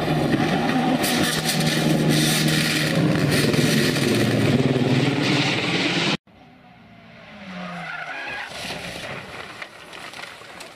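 Škoda Fabia R5 rally car at full throttle at high revs, sliding on gravel with loose stones spraying. About six seconds in the sound cuts off abruptly to a quieter stretch where an engine note rises again.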